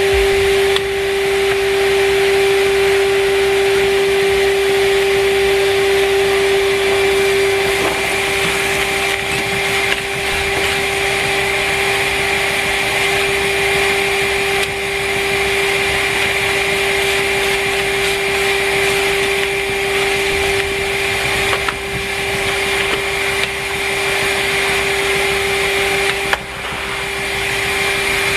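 Numatic Henry Wash wet-and-dry vacuum cleaner running steadily with a constant motor whine, its loudness dipping briefly a few times.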